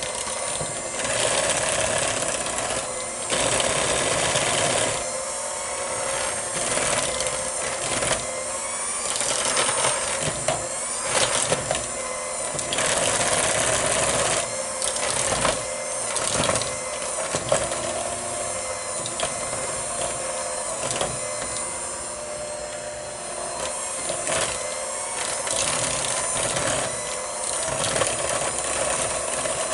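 Electric hand mixer running steadily, its beaters labouring through thick softened butter in a bowl, the grinding swelling and easing as the beaters move.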